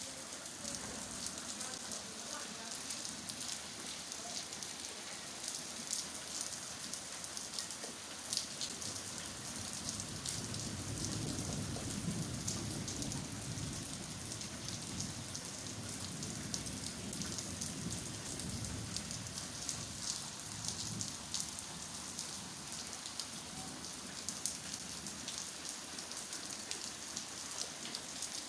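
Steady rain falling, with many sharp individual drop hits. A low rumble swells about a third of the way in and fades again around two-thirds through.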